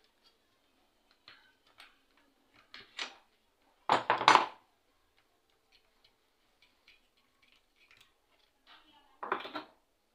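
Metal clicks and clinks of a wrench and steel saw parts being handled while a marble saw's disc flange nut is taken off, with a loud metallic clatter about four seconds in and another near the end.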